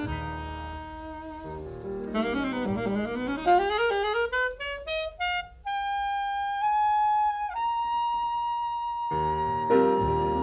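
Jazz ballad ending. A solo saxophone holds a note, plays a fast rising run up to a high held note, then sustains a final high note while a piano and band chord comes in underneath about nine seconds in.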